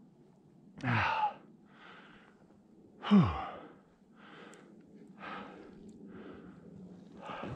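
A skier breathing hard: two loud, voiced sighing exhales about one and three seconds in, each dropping in pitch, then softer breaths roughly once a second.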